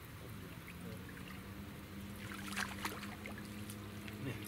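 Hooked fish splashing at the water's surface as it is reeled in to the bank, the splashes coming about two to three seconds in, over a steady low hum.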